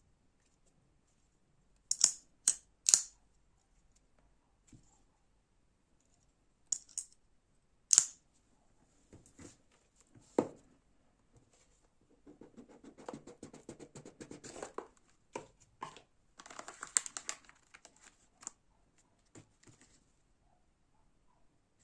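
Folding knife being handled: three sharp metallic clicks in quick succession about two seconds in, single clicks around seven, eight and ten seconds, then longer stretches of scraping and rustling.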